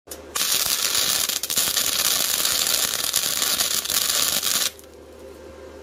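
Flux-core wire welder (Harbor Freight Titanium 125) arc crackling and sizzling steadily as it runs a weld bead on a sheet-steel trailer fender, cutting off sharply near the end and leaving a low steady hum.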